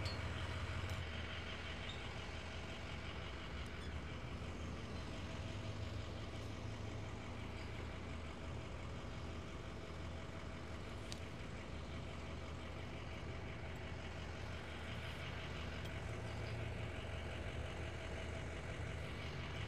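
Truck engine idling steadily, a constant low hum.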